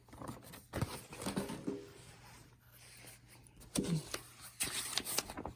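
Paper calendar pages being handled and turned: scattered crinkles and clicks, with a longer rustle near the end as a page turns over.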